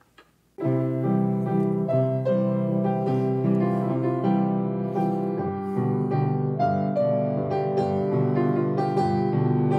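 Piano music starting about half a second in and carrying on steadily, a run of overlapping notes.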